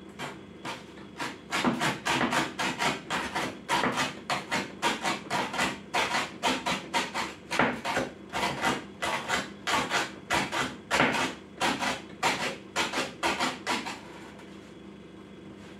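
Kitchen cleaver chopping cabbage leaves finely on a wooden cutting board: a quick run of knocks, about three a second, that stops near the end.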